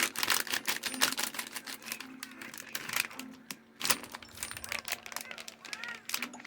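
Rapid, irregular clicking and crinkling of plastic packaging being handled and opened by hand, with a sharper knock about four seconds in.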